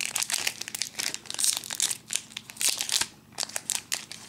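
Foil wrapper of a Pokémon trading card booster pack crinkling irregularly as it is handled and worked open in the hands.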